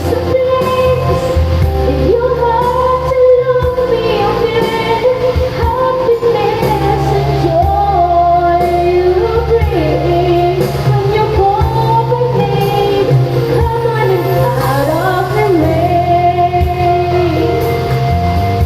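A song with a woman singing a flowing melody over a steady bass line and backing instruments.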